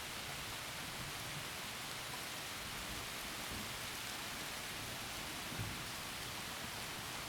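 Steady heavy rain falling through trees, an even hiss, with one brief low thump about five and a half seconds in.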